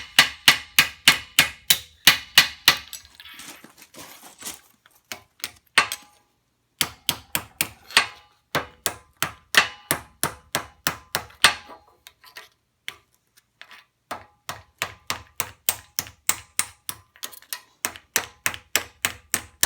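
Hammer tapping a thin cold sheet-metal repoussé piece in quick runs of ringing strikes, about four a second, with short pauses between runs, working out the ripples along its edges.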